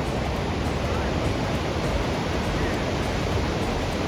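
Steady rushing water with a low, uneven rumble underneath, with no breaks or separate events.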